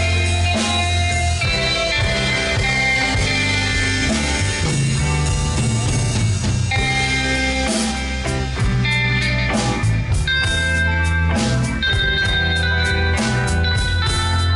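Live rock band playing an instrumental: two electric guitars through amplifiers over bass guitar and a drum kit. The cymbal and drum beat stands out more clearly in the second half.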